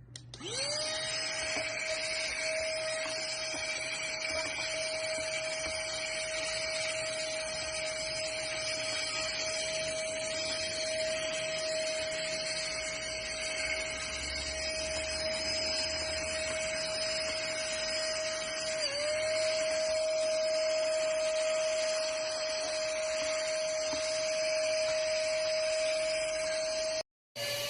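Portable cordless car vacuum cleaner's motor switching on, spinning up within a second to a steady high whine with a hiss of airflow. Its pitch dips briefly about two-thirds of the way through, then settles again, and the sound cuts off suddenly near the end.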